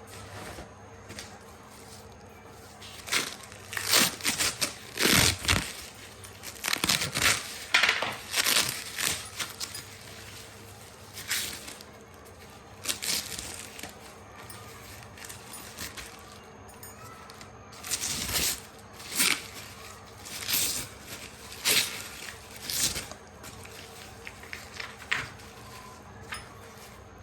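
Parcel packaging being handled, crinkled and torn open, in irregular rustling bursts.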